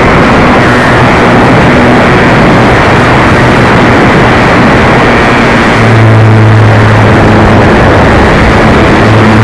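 A model airplane engine, an RC Cessna 182's, runs steadily under a loud rushing noise. Its low drone grows stronger for a moment about six seconds in.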